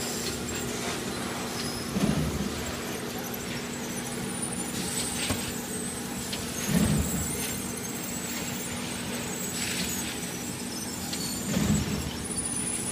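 Shrink wrap packaging machinery running with a steady hum and a constant low tone. A louder low sound comes about every five seconds, three times, with a few short hisses between.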